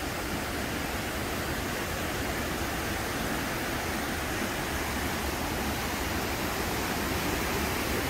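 Waterfall and river rapids rushing with a steady, even roar of water.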